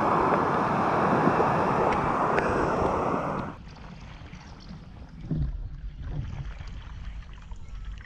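Loud, steady rush of water tumbling over a rocky waterfall and rapids, cutting off suddenly about three and a half seconds in. After that, a much quieter low rumble of wind on the microphone, with a few soft splashes of a paddleboard paddle dipping in calm water.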